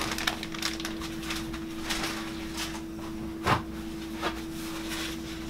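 Aluminium foil crinkling and rustling as it is handled: a run of small, irregular crackles with one louder knock about three and a half seconds in, over a steady low hum.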